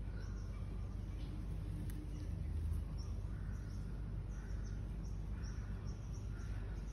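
Small birds chirping: a quick run of short, high, falling notes, about two or three a second, from about halfway through, over a steady low background rumble.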